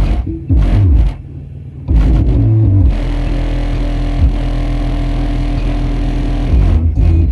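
Loud, bass-heavy music played through a 3000-watt car audio system. The bass drops out for about a second early on, then settles into a steady held low note.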